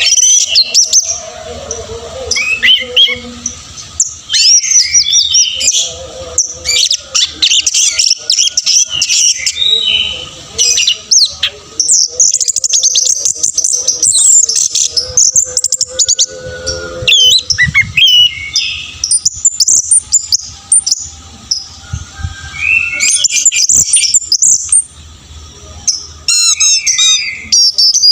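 Orange-headed thrush singing a long, varied song of fast, high-pitched whistled phrases and rapid chirps, delivered nearly without pause in the continuous 'teler' style.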